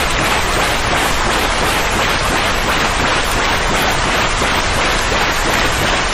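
Steady, unbroken white-noise hiss, even in level with no rise and fall, strongest in the middle and upper range: a soothing noise for a colicky baby.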